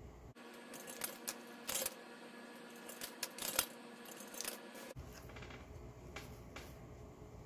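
Artificial flower stems and wispy greenery picks being handled and adjusted in an arrangement: light rustling with scattered small clicks.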